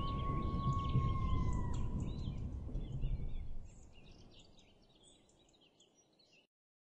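Outdoor ambience with a low rumble and scattered faint bird chirps, fading out about three and a half seconds in. A thin whistle-like tone slides slightly down in pitch during the first two seconds.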